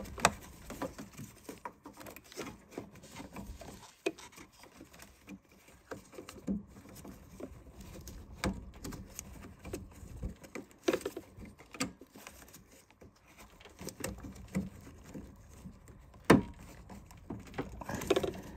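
Hands fumbling to plug a wiring connector into the back of a car headlight assembly: scattered small plastic clicks, taps and rustles, with one sharper click about sixteen seconds in.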